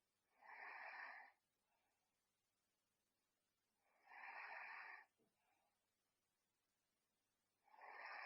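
A sleeping person snoring, three breathy snores about every four seconds, the last running on past the end.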